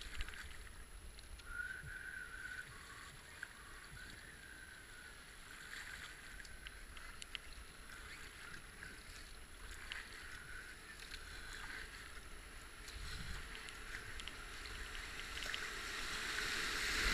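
Racing kayak being paddled down a river: paddle blades dipping and splashing, with light clicks and water moving along the hull. The rushing of a rapid ahead grows louder over the last few seconds.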